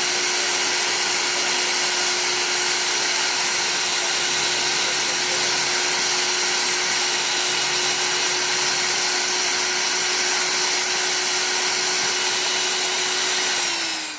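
CNC engraving machine's spindle running steadily on copper work, a constant whine over a hiss of noise. Right at the end its pitch sags briefly and the sound cuts off.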